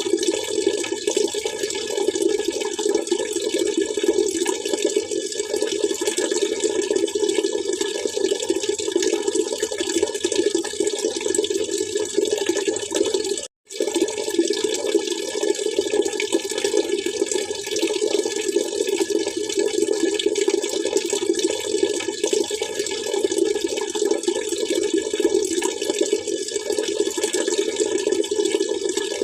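Steady splashing, trickling water running without pause, except for a brief cut to silence about halfway through.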